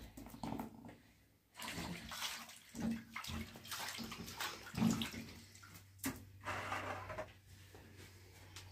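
Hands splashing and swishing in a plastic basin of water, rinsing off bread dough, in uneven bursts.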